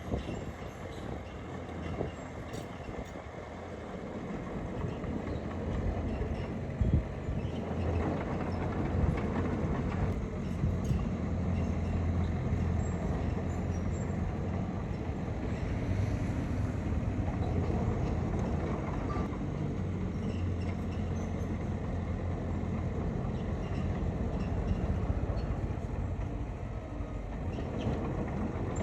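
Bulldozer's diesel engine running steadily, with clanking from the crawler tracks; it grows louder about four seconds in.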